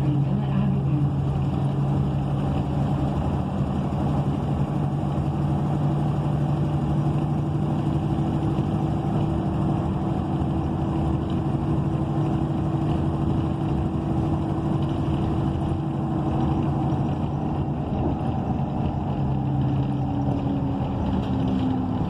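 Inside a moving ENC EZ Rider II transit bus: its Cummins Westport ISL G natural-gas engine runs at a steady pace under tyre and road noise. Near the end the engine note dips and then rises again.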